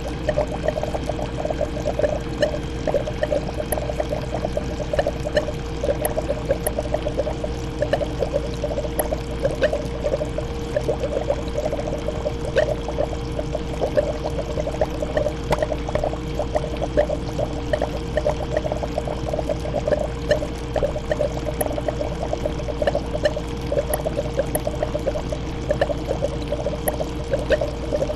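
Fish tank water pouring and trickling steadily, with a constant hum underneath.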